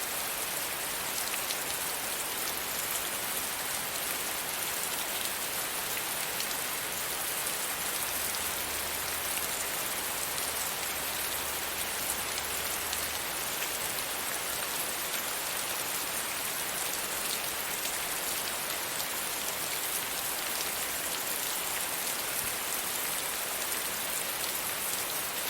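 Light rain shower falling steadily, an even hiss of rain dotted with many small drop ticks.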